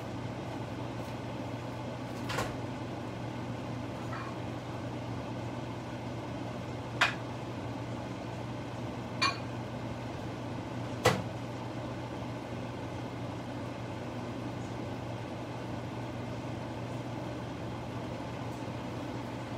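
A pot of beef and onions simmering in gyudon sauce on the stove: a steady low hum and whir, with four sharp ticks about two, seven, nine and eleven seconds in.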